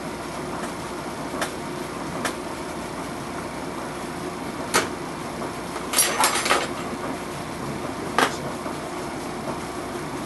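Several sharp clicks and light knocks from handling a car door speaker and its parts during repair, including a quick cluster of three about six seconds in, over a steady background hum.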